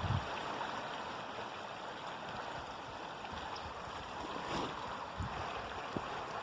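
River water flowing and rushing steadily, with a couple of brief low thumps about five and six seconds in.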